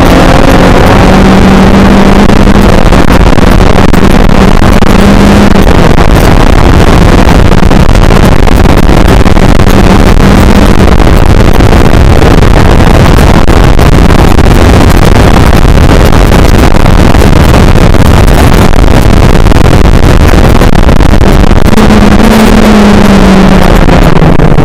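Onboard sound of a Skip Barber race car's engine running at high revs under way, very loud and distorted. The engine note holds a steady pitch for about ten seconds, is buried in the noise for a while, then rises briefly near the end before dropping as the revs fall.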